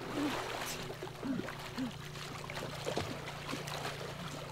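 Water sloshing and splashing as a person wades through waist-deep water, with a low steady drone underneath.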